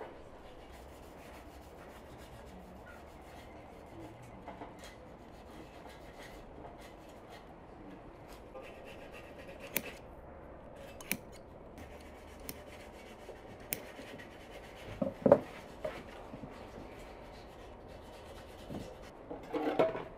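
Quiet hand rubbing on a tubular metal chair frame, followed by scissors snipping through thick upholstery foam, with a few sharp clicks and one loud knock about fifteen seconds in.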